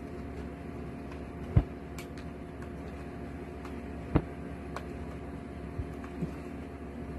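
A small cardboard toy car box being handled and opened: a few light clicks and two sharper knocks, about a second and a half in and about four seconds in, over a steady room hum.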